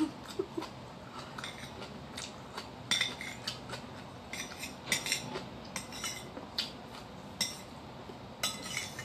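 Metal spoon clinking and scraping against a ceramic bowl while scooping rice, a dozen or so short, irregular clinks.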